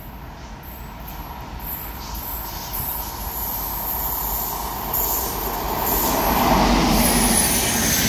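A WAP-7 electric locomotive and its passenger coaches approaching and then running past at speed: a rumble of steel wheels on rail that grows steadily louder, with a faint steady whine under it.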